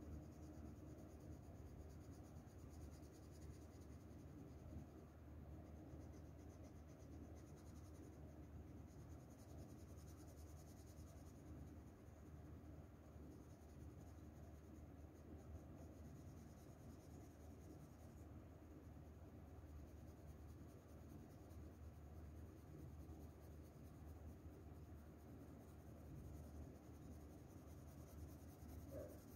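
Faint scratching of a graphite pencil shading on paper, in steady repeated short strokes.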